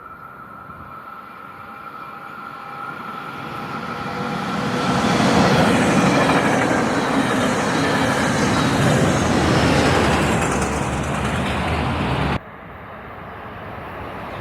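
A train passing on the rails, its rumble and wheel noise building to a loud, steady pass. About twelve seconds in it cuts off suddenly to a quieter train sound that grows louder as another train approaches.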